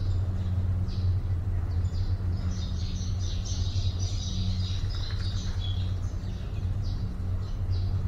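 Small birds chirping, with short calls spaced through and a busy burst of twittering from about two and a half to six seconds in, over a steady low hum.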